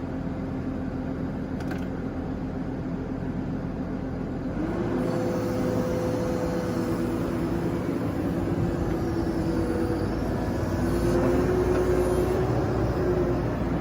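Diesel engine of a CAT 313DCR hydraulic excavator running steadily. About four and a half seconds in, its pitch steps up and it gets a little louder, as the engine speed rises.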